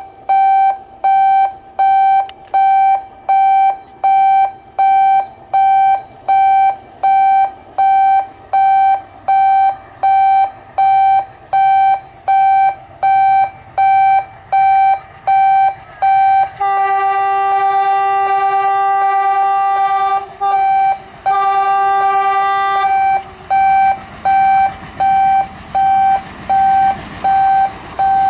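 Steady electronic beeping, about three beeps every two seconds. In the middle a WDM-class diesel locomotive's horn sounds twice, a long blast then a short one, and near the end the approaching train's rumble grows louder.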